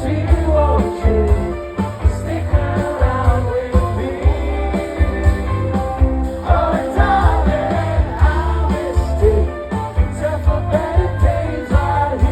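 Live rock band playing through a concert sound system: steady kick drum and bass pulse under held chords and a wavering melody line.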